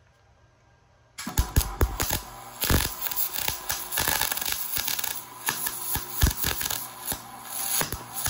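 Chicago Electric MIG welder arc crackling and spattering as a bead is run on steel flat bar, starting about a second in. The crackle is uneven with frequent sharp pops, a dirty weld that the welder puts down to mill scale on the steel.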